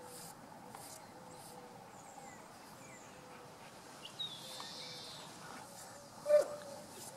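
Small birds chirping repeatedly in the background. One short, loud call sounds near the end.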